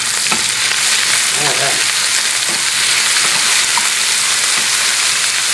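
Bell peppers frying in hot oil in a pan: a steady sizzle.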